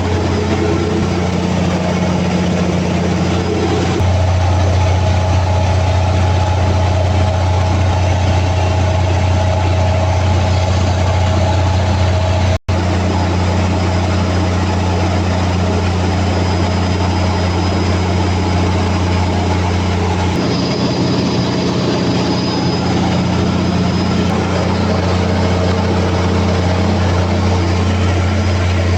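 Freshly overhauled Cummins QST30 V12 diesel engine running steadily on test with a deep, even drone. Its tone shifts slightly about four seconds in and again about twenty seconds in, and the sound cuts out for an instant near the middle.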